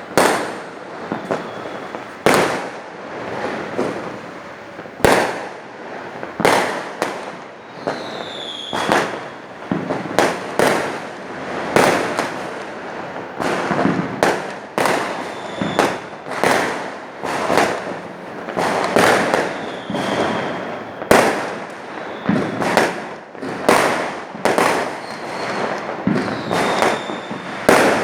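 Fireworks display: a steady run of aerial shell bursts, a loud bang every second or two, with crackling in between and a few short falling whistles.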